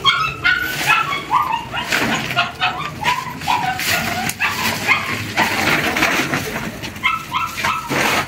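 Young puppies whimpering and yelping in short, high, repeated cries, with a lull past the middle before more cries near the end; rustling and scuffing sounds run underneath.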